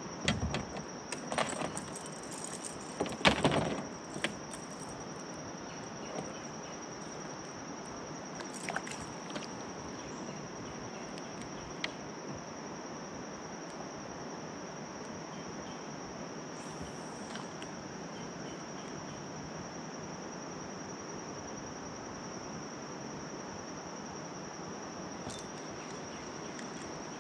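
Insects droning, one steady high-pitched tone throughout. Over it come a few knocks and rattles in the first four seconds, the loudest about three seconds in, and a few faint ticks later.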